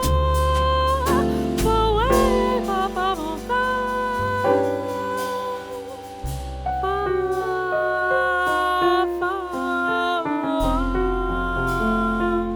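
Jazz quartet playing: a singer holds long notes with vibrato over double bass, piano and drums with cymbal strokes.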